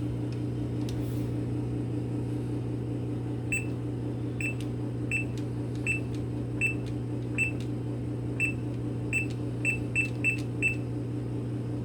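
Short high beeps from an AP vending machine's selection keypad as buttons are pressed to program prices on the control board: about a dozen, irregularly spaced, starting a few seconds in and coming faster near the end. A steady low hum lies underneath.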